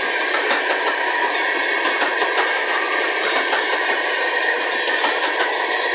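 Empty coal gondolas of a freight train rolling past, their steel wheels making a steady noise on the rails.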